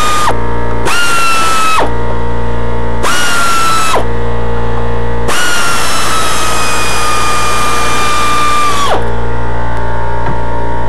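Power drill spinning bolts out of the upper intake manifold in short runs: a whine that stops just after the start, runs briefly twice more, then once for about three and a half seconds, its pitch sagging a little under load. A steady low hum sits underneath.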